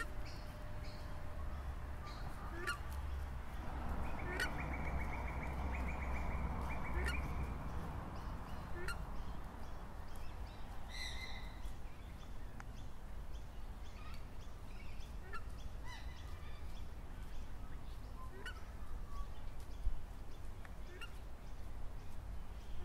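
Birds giving short, sharply gliding calls every second or two over a steady low rumble. A rushing sound with a thin high tone swells and fades between about four and eight seconds in.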